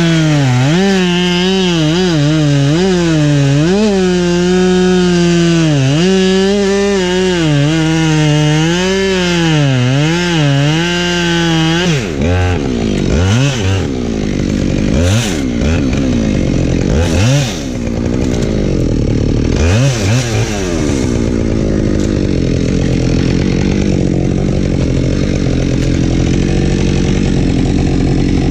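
Husqvarna 572XP two-stroke chainsaw cutting firewood at high revs for about twelve seconds, its pitch wavering as it works in the cut. The throttle is then dropped and opened again several times, and in the last seconds a lower, steady engine sound holds.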